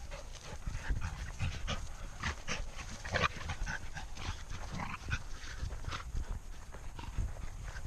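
A dog panting, with many short irregular crackles and rustles throughout.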